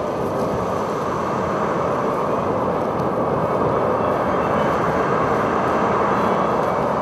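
A loud, steady rushing rumble with no clear rhythm, swelling slightly over the last few seconds.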